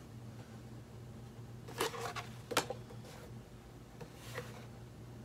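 Hands handling paper cards and small items from an unboxed crate: a few soft rustles and light clicks, the sharpest about two and a half seconds in, over a steady low hum.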